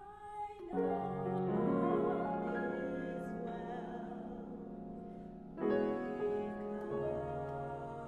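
Mixed-voice chorus singing slow, sustained chords with grand piano accompaniment. A new chord swells in just under a second in and another just before six seconds.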